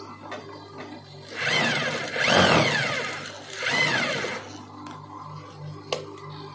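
Industrial sewing machine stitching in three short runs, its pitch rising and falling each time as the machine speeds up and slows down.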